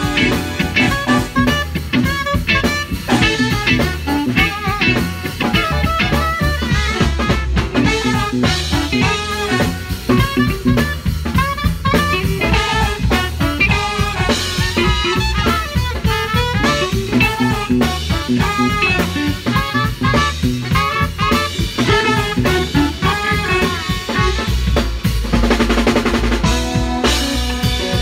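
Live band music: saxophone and trumpet playing melodic lines over a drum kit and electric bass.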